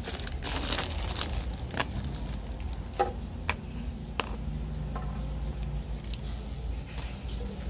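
Light handling noises: a few scattered soft clicks and taps with faint rustling, over a low steady hum.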